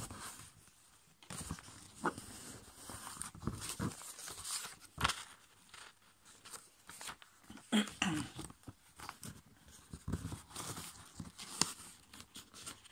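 Hands folding and creasing a sheet of copy paper on a table: irregular paper rustling and crinkling with short crisp clicks and rubs as the folds are pressed flat.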